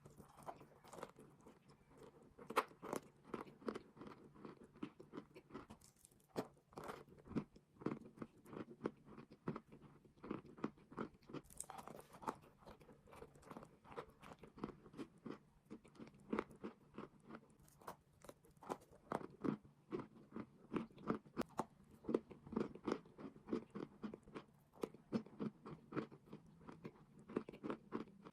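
Crunching and chewing of chalk and clay, a steady run of sharp crunches at about two to three a second.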